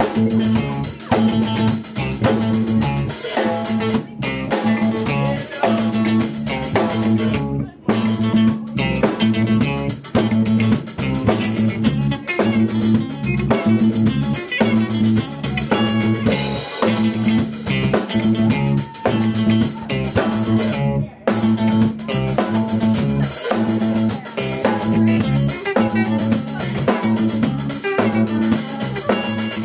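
A small band playing live: guitar, bass guitar and drum kit, with short breaks in the playing about 4, 8 and 21 seconds in.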